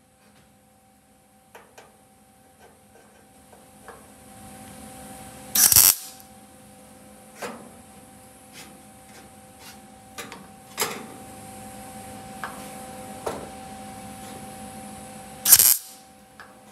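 MIG welder striking two short tack welds on a VW Beetle's sheet-metal body panel, each a brief loud crackle, about ten seconds apart. Between them there is a steady hum and scattered small clicks and taps.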